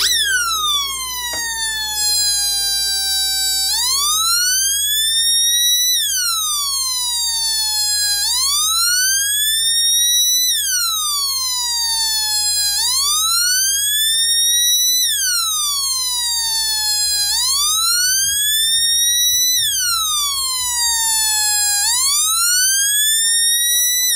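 Homemade two-555-timer police siren circuit wailing through a small loudspeaker: a buzzy electronic tone gliding up and down, one rise and fall about every four and a half seconds.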